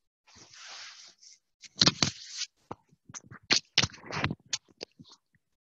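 A person shifting position on a yoga mat: first a soft rustle of clothing, then a run of short scrapes and knocks.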